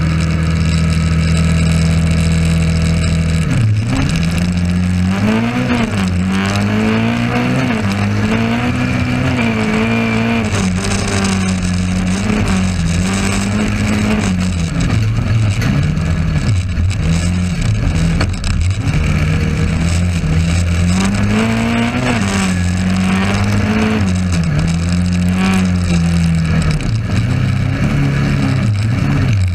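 Small race car's engine heard from inside its caged cabin: held at steady revs for about the first three seconds, then revving up and down again and again as the car accelerates, shifts and lifts around the track.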